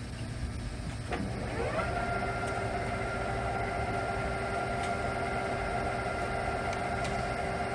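LeBlond hollow-spindle sliding-bed gap lathe's gear drive whining up to speed about a second in, then running at a steady pitch over a low machine rumble.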